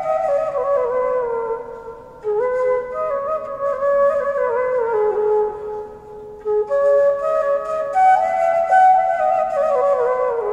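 Bamboo bansuri flute playing a slow solo melody in phrases that step downward, with short pauses for breath about two seconds in and again just past six seconds.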